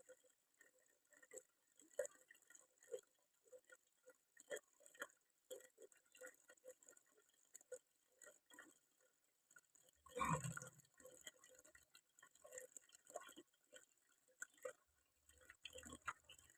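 Near silence with faint, scattered clicks and taps, and a brief louder rustle about ten seconds in.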